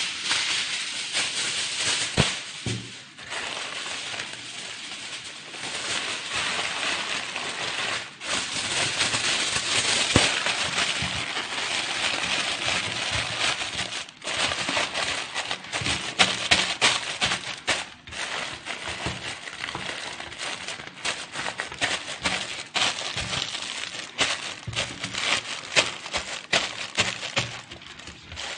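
Aluminium foil crinkling and crackling as it is crumpled and pressed down around a tray of food: a dense run of sharp crackles with a few brief pauses.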